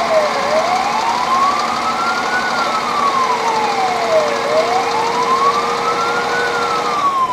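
Fire engine siren in a slow wail, its pitch rising for about two seconds and falling for about two seconds, over and over, heard from inside the moving truck's crew cab.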